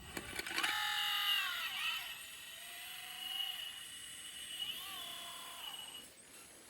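Radio-controlled 360 excavator's small electric motor running with a high whine. The pitch sags under load around two seconds in and again near five seconds, and the whine stops about six seconds in.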